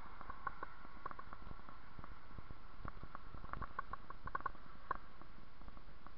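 Bicycle rolling along a paved path: irregular light rattles and clicks over a steady low rumble, busiest a little past halfway.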